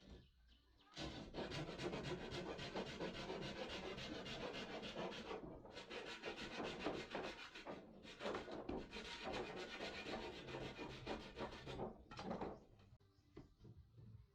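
Abrasive scraping on wood, a rough rasping noise in three long runs broken by two brief pauses.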